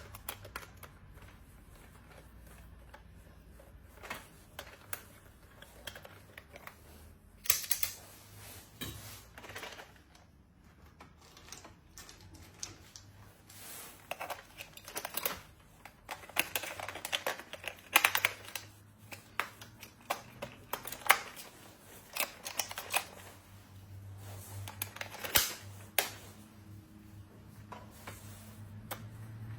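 Hands unboxing a small plastic toy: irregular clicks and taps of plastic parts and packaging, with short stretches of rustling.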